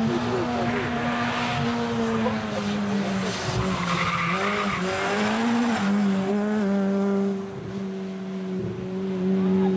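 Ford Fiesta rally car's engine running hard at high revs, its note dipping twice and picking up again as it slides through a corner, with tyres skidding on the dusty road.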